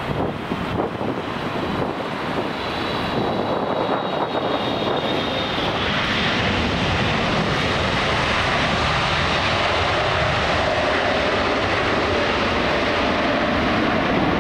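Jet airliner on approach to land, its engines a steady rush growing louder. A faint high whine is heard in the first few seconds and fades into the rush.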